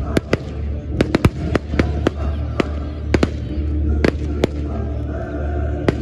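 Fireworks display: aerial shells bursting in a rapid, irregular series of sharp bangs, about a dozen in a few seconds, over music playing steadily underneath.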